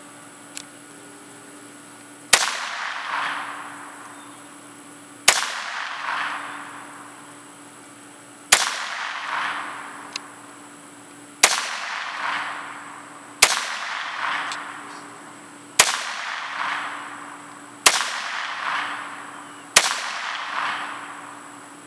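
Ruger Mark II 22/45 .22 LR semi-automatic pistol fired eight times, one shot every two to three seconds. Each sharp crack is followed by a rolling echo lasting about a second.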